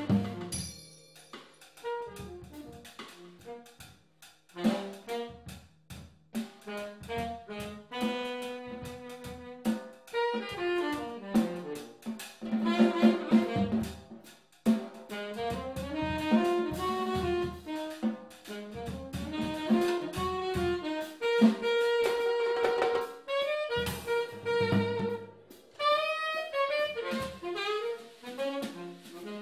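Saxophone and drum kit playing jazz as a duo: the saxophone plays running melodic phrases while the drums are struck with sticks on snare, toms and a large ride cymbal.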